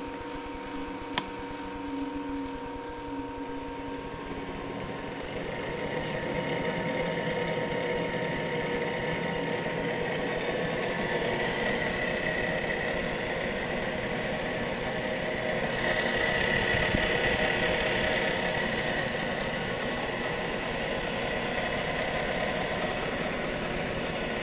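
A switch clicks about a second in, then the Gorton 9-J milling machine's spindle drive, run from a VFD, comes up over a few seconds and runs steadily with a hum and a high steady tone. The spindle has been rebuilt with new P5 bearings.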